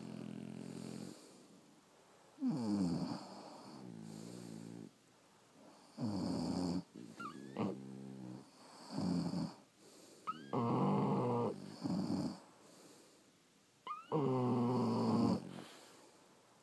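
French bulldogs snoring in their sleep: a loud rasping snore about every four seconds, with softer breaths between and a short rising whistle just before some of the snores.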